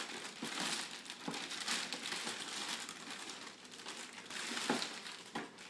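Plastic wrapping on a toy box crinkling and crackling in irregular bursts as it is pulled and handled.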